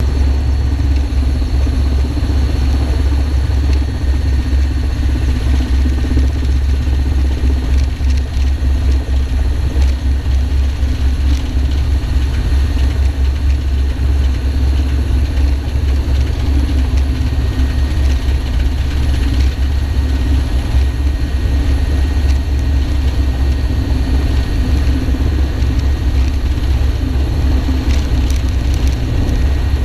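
Military helicopter running steadily: a deep, even throb with thin steady whining tones above it.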